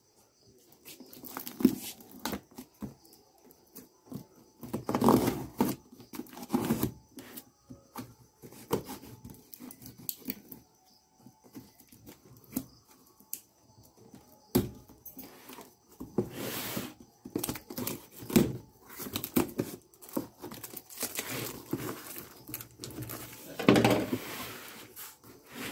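Packing tape on a cardboard carton being slit with a knife and torn off, then the cardboard flaps pulled open: irregular tearing, scraping and rustling with sharp clicks.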